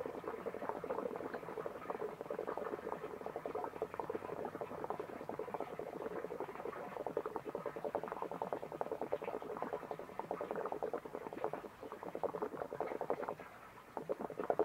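Homemade PVC bell siphon draining, water and air gurgling and sputtering in a dense rapid crackle as air bubbles get in from the base: the siphon is almost ready to break. The gurgling thins out near the end.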